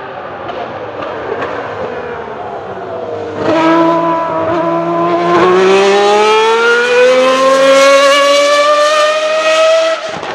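1995 Ferrari 412 T2 Formula 1 car's 3.0-litre V12 engine screaming on track. Its pitch falls over the first few seconds; about three seconds in it becomes much louder, and then the revs climb steadily for several seconds before the level drops near the end.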